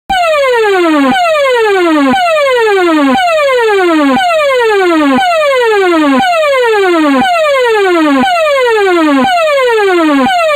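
SafetyCom ESC-864 electronic siren playing its 'Gas Proof Protection' tone: a loud falling sweep that drops sharply in pitch and restarts at the top about once a second. The sample carries added reverb.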